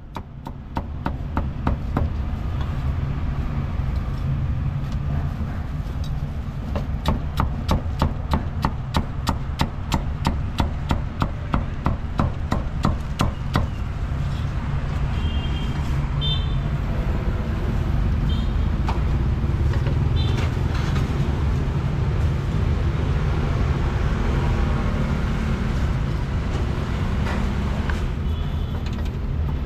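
Meat cleaver chopping crispy roast pork belly on a thick round wooden chopping block: a fast, even run of knocks that stops about halfway through. A steady low rumble of street traffic runs underneath.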